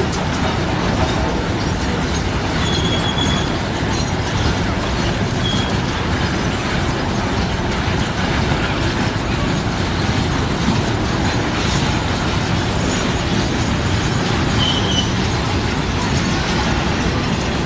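Loaded coal wagons of a long freight train rolling past, a steady rumble of wheels on rails, with a few brief high wheel squeals about three seconds in, at five seconds and near fifteen seconds.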